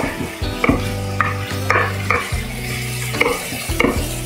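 Chef's knife dicing a Roma tomato on a wooden cutting board, knocking on the board about twice a second, over the sizzle of mirepoix sweating in the pot.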